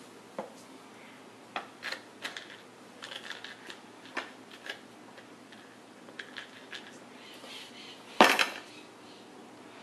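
Light clicks and taps on hard plastic as a baby handles the toys and tray of an activity saucer, with one much louder knock near the end.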